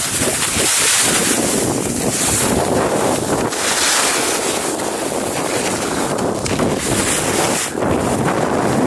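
Strong wind rushing over an action camera's microphone during a fast descent on snow, with the steady hiss of sliding over the snow mixed in.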